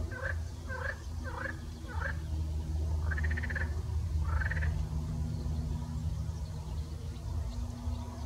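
An animal calling: a run of short harsh calls, about two a second, then two longer pulsed calls a little later, over a steady low rumble.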